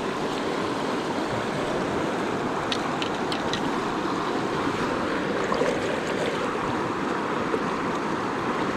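Swollen, fast river current rushing steadily, with a few light clicks about three seconds in.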